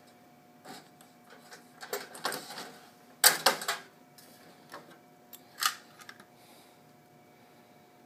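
Metal tinplate toy train pieces being handled, with irregular clicks and short rattling clatters, the loudest a little past three seconds in.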